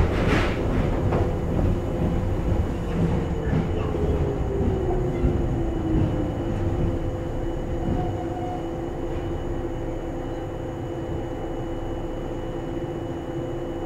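Cabin running sound of a Joshin Electric Railway 700 series train (ex-JR 107 series) with MT54 traction motors, heard from inside a carriage. The motor and gear whine falls in pitch over the first few seconds as the train slows, then holds at a steady pitch over the rumble of wheels on rail.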